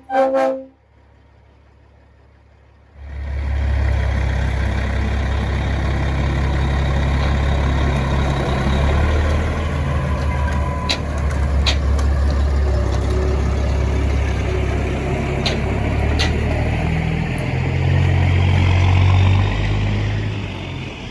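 Heavy semi truck's diesel engine running with a steady low rumble, a few sharp clicks over it midway, swelling briefly near the end before easing off. It opens with the last half-second of a train-horn blast, then a short lull before the engine sound comes in.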